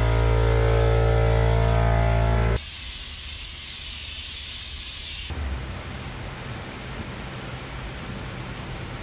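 A motor running with a loud, steady hum cuts off abruptly about two and a half seconds in, giving way to the hiss of a gravity-feed paint spray gun spraying paint. The hiss stops suddenly about five seconds in, leaving a quieter steady background hum.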